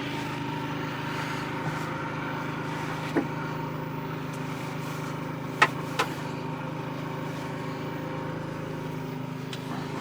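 A machine running steadily with an even, engine-like hum, broken by a few sharp clicks about three, five and a half and six seconds in.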